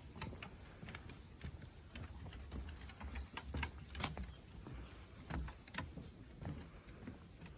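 Footsteps on a woodland path: irregular light clicks and crackles of feet on twigs and leaf litter over a low rumble of wind or handling on the microphone.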